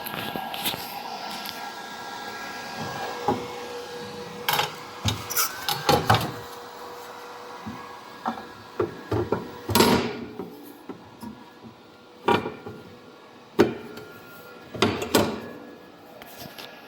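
Sharp knocks and clatter of hard parts being handled and tapped, some in quick clusters, over a steady machine hum with a faint whine that fades over the first half.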